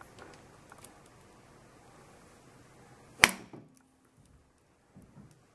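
A single hard stab of a tanto-tipped knife blade striking a dog helmet's plastic eye lens: one sharp impact with a brief low ring from the helmet after it. The blade glances off to the side without penetrating. Faint handling clicks come before the stab.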